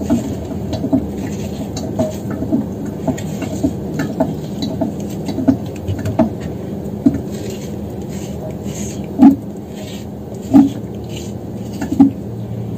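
A metal spoon scraping and scooping the soft centre out of rings of fuzzy melon, with irregular small scrapes and clicks. A few louder knocks stand out in the second half.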